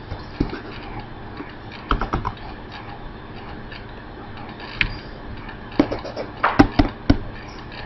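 Scattered clicks and taps from a computer keyboard and mouse being worked to change a presentation slide, with a louder cluster of clicks about six to seven seconds in.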